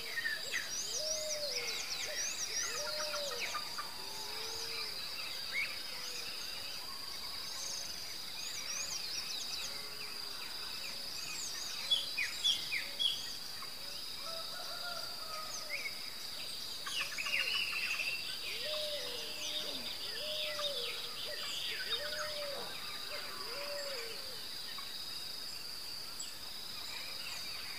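Dusk outdoor ambience: a steady high-pitched insect drone with many birds chirping over it, including runs of lower calls that rise and fall, several in a row, and a few short louder calls near the middle.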